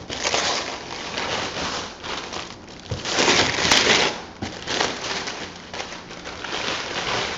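White paper wrapping and tissue paper crinkling and tearing as they are pulled off a shoe box, in a run of irregular crackles with the loudest rustle about three seconds in.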